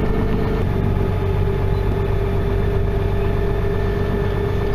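Steady engine and road noise heard from inside a moving vehicle's cabin. A constant low drone runs throughout, and one of its tones drops slightly in pitch just under a second in.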